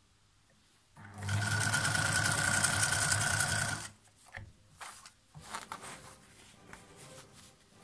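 Singer 1301 electric sewing machine starting about a second in and stitching steadily for about three seconds, the motor whine running under the rapid needle strokes, then stopping. After that come a few soft rustles and clicks as the fabric is drawn out from under the presser foot.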